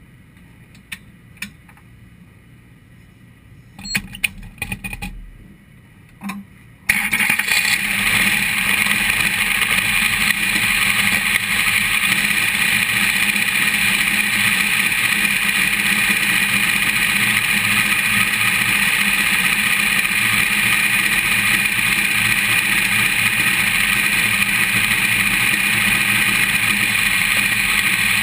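A few scattered clicks and knocks, then a race car's engine fires about seven seconds in and runs loud and steady.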